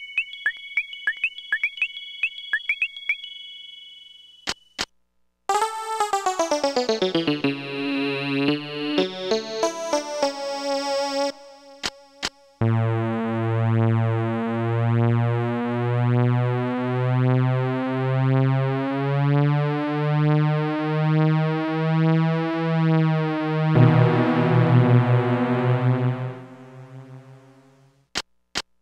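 Casio SA-10 mini keyboard playing its built-in voices one after another. First comes a run of short high pings, then a voice whose notes slide downward in pitch, then a long held low note that swells and fades about once a second, drops to a lower note and fades out near the end. Short clicks fall between the sounds.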